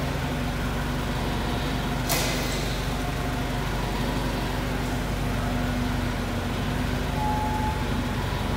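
Forklift running with a steady low hum as it drives up to a pallet. A short hiss about two seconds in.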